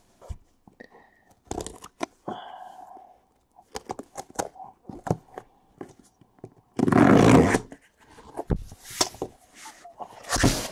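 Taped cardboard shipping case being opened by hand: the sealing tape is torn and the cardboard flaps pulled apart, with scattered rustles and small knocks. The loudest part is a tearing, scraping noise of about a second, roughly seven seconds in.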